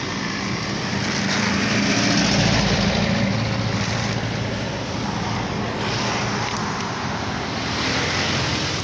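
Road traffic running past, with a vehicle engine swelling louder about two seconds in and again near the end.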